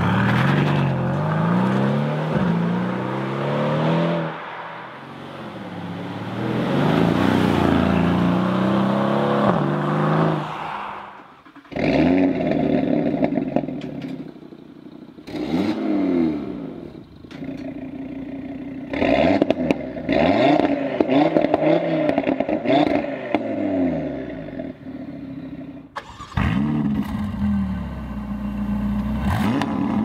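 Three sports-car exhausts in turn, revved while parked. First, the Mercedes-AMG C 63 Cabriolet's twin-turbo V8 rises in pitch and drops back twice. Then, from about twelve seconds in, the Audi TT RS's turbocharged five-cylinder is blipped repeatedly in short revs that rise and fall. Near the end, the Ferrari California T's twin-turbo V8 runs steadily.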